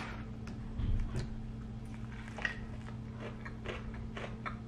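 A person biting into and chewing a fried chicken sandwich: a dull thump about a second in, then chewing with small scattered crunches.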